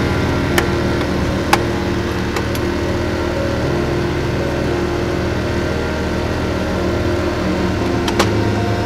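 An engine idling steadily with a low, even hum, broken by a few short sharp clicks, about half a second in, about a second and a half in, and near the end.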